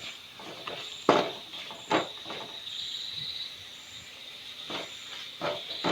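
Masala frying in a pan with a soft hiss, broken by a few sharp knocks of a stirring spoon against the pan, about a second and two seconds in and again near the end. Insects chirp steadily behind it.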